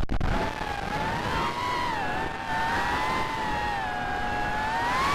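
Racing quadcopter's Cobra 2206 2100kv brushless motors spinning HQ 4040 tri-blade propellers, heard from the onboard camera: a whine that picks up again a moment in after a brief throttle cut, wavers in pitch with the throttle and rises near the end, over a rush of wind.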